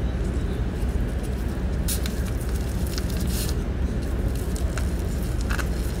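Dried laver (gim) sheet rustling a few times, briefly, as hands wrap and roll it around a sausage and cheese, over a steady low rumble.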